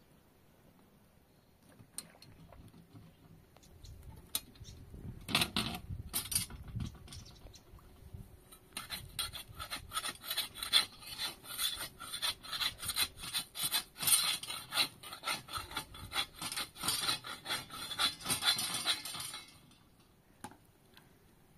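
A hand tool rasping on wood in rapid, even strokes, after a few scattered scrapes and knocks; the strokes run steadily for about ten seconds and stop abruptly near the end.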